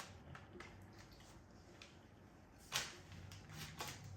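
A few light clicks and knocks, the sharpest about three seconds in, from small plastic bottles being handled while food colouring is squeezed in.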